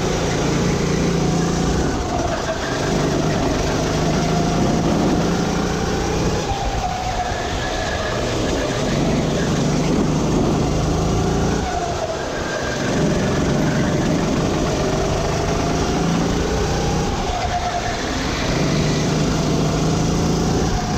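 Sodi RT8 rental kart's four-stroke engine running hard on track, its pitch rising and falling several times as it accelerates out of corners and slows into them.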